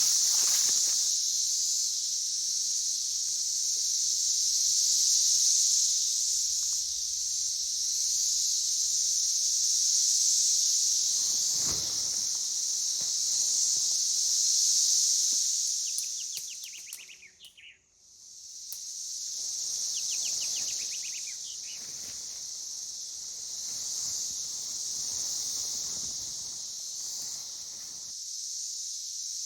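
A steady, high-pitched chorus of insects in summer woodland, with a few faint bird chirps. The chorus dips almost to nothing for about a second just past the middle, then comes back.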